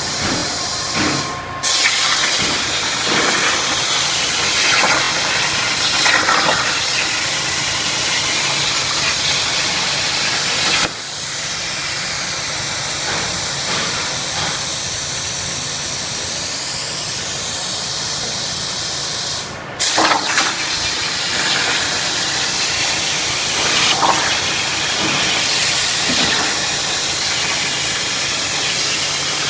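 CNC plasma torch cutting steel sheet: a loud, steady rushing hiss from the plasma arc. It breaks off briefly twice, about a second and a half in and again about two-thirds of the way through, each time as the arc stops and restarts.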